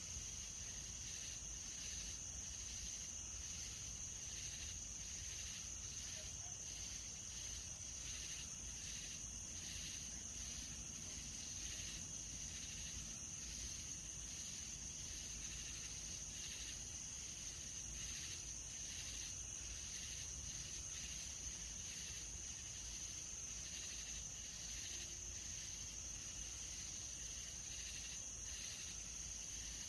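Night-time insect chorus: a steady high-pitched trill with a second call pulsing rhythmically over it, the kind of sound crickets make.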